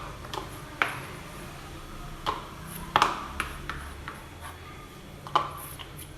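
Kitchen dishes and utensils being handled: a handful of sharp, irregular knocks and clinks with a short ring, the loudest about three seconds in and again near the end.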